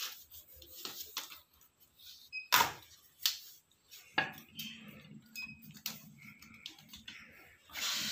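Handling noise on a tiled floor: a few sharp clicks and knocks as a tripod, a phone and a bowl are handled. A faint low steady hum comes in about halfway through, and a rush of noise starts near the end.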